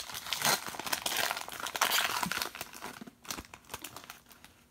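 Foil wrapper of a trading-card pack being torn open and peeled back: a dense crinkling crackle for about three seconds, thinning to a few scattered crinkles near the end.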